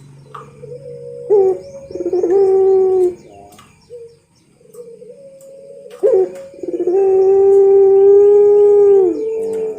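Puter pelung, a turtle dove bred for its long coo, cooing: a shorter coo about a second in, then a long held coo note of about two and a half seconds that drops away near the end. Faint small-bird chirps sound behind it.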